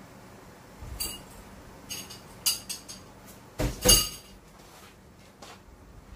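Dishes and cutlery clinking and knocking in a kitchen: a few separate clinks, the loudest pair about four seconds in.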